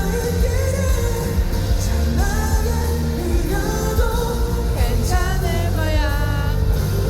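Pop song playing: a steady bass under a sung melody, with a held, wavering note near the end and no clear words.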